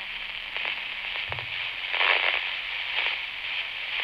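Baofeng UV-5R handheld radio's speaker hissing with static and crackles while receiving a weak, patchy repeater signal. The hiss swells about two seconds in and again near three seconds.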